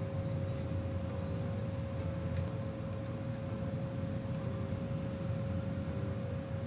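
A steady electrical or fan hum, a low drone with a thin steady tone over it, with scattered faint clicks from small tools.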